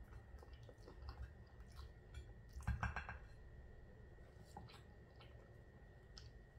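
Faint clicks and clinks of a metal knife against a ceramic plate while hot sauce is spread on a cheese-topped baguette, with a louder clatter about three seconds in.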